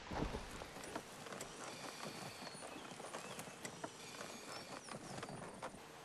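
Wheelchair rolling over rough grass and leaf litter: faint, irregular clicks and knocks from the wheels, with a few faint high chirps.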